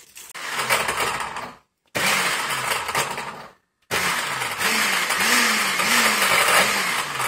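Countertop blender with a glass jug crushing frozen juice ice cubes: a loud, harsh grinding rattle in three runs, cut off sharply twice. In the last run the motor's pitch rises and falls over and over as it labours on the ice.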